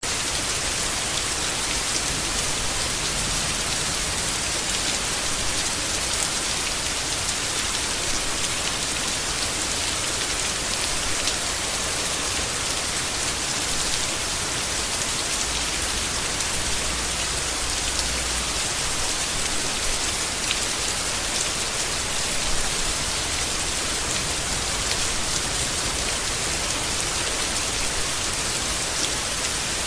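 Steady rain falling on leaves: a dense, even hiss with many small drop patters.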